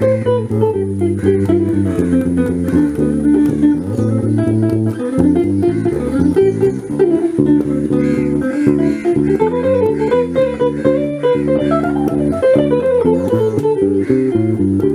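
Electric bass guitar and electric guitar jamming a blues, the guitar playing single-note runs over the bass line.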